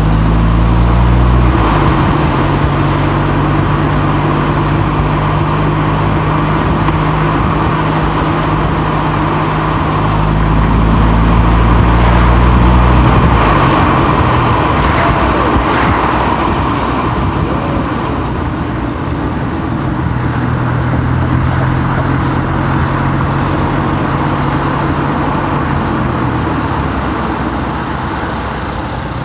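Car driving through streets, heard from outside on the car body: steady engine and tyre-on-road noise, with the engine note stepping up and down as the car speeds up and slows. Short high chirps come twice near the middle.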